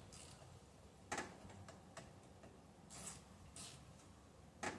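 A few faint, scattered clicks and clinks of hand tools being handled, as sockets are tried on a steering-wheel centre nut, with a couple of short light scrapes.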